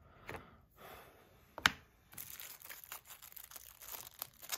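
Clear plastic bag crinkling as it is handled and pulled open. About a second and a half in there is a single sharp click, a small metal tool set down on the tray.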